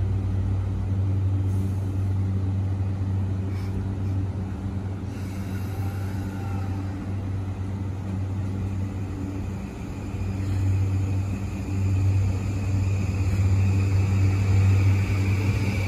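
E235-1000 series electric train standing at the platform with a steady low hum, then pulling away about ten seconds in. Its traction motors give a high whine that slowly climbs in pitch as the sound grows louder.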